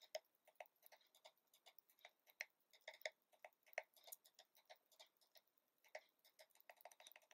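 Faint, irregular clicks, a few a second, as the remote's direction buttons are pressed to step a highlight across a TV's on-screen keyboard.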